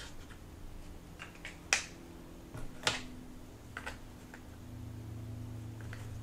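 A few scattered light clicks and taps from handling a marker and a plant label, the sharpest one a little under two seconds in. A faint low hum comes in about two-thirds of the way through.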